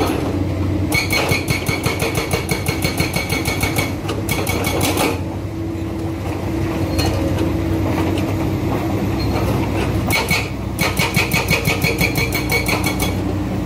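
Hydraulic breaker on an excavator hammering rock or concrete in rapid, evenly spaced strikes, in bursts lasting a few seconds, over the excavator's diesel engine running steadily between bursts.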